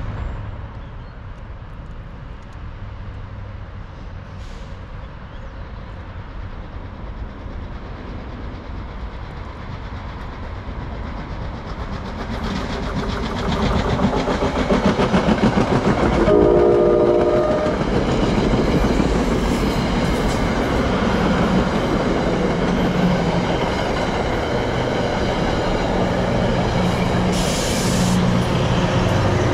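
NJ Transit commuter train with Comet coaches approaching and passing close: a low rumble builds, a short horn blast sounds a little past halfway, then the loud steady rumble and clatter of the coaches going by.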